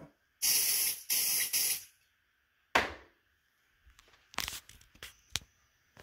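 Two short hissing bursts of an aerosol smoke-detector test spray, each about half a second long, aimed at a ceiling smoke detector to set it off. A sharp click follows about a second later, then a few lighter knocks and clicks.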